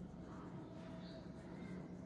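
Faint soft scratching of a crayon rubbed over drawing paper while colouring in, over a low steady hum.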